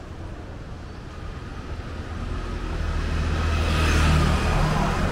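A motor vehicle's engine and tyres growing louder as it approaches and passes close by, loudest about four seconds in.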